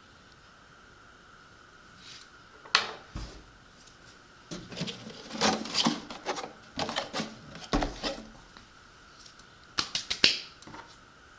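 Handling noise from a plastic RC boat hull being turned over and set down on a stack of books on a wooden desk: irregular knocks, bumps and rubbing, starting a couple of seconds in, busiest in the middle, with a few sharp knocks near the end.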